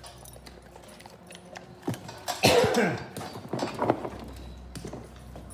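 A short, loud vocal sound about halfway through, with a few light knocks and rattles just before and after it.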